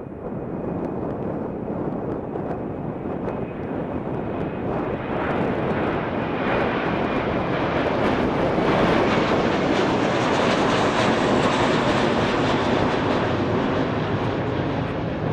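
Airbus A321 jet engines and rushing air on the takeoff run: a loud, even roar that grows louder over the first several seconds, then holds steady at full power.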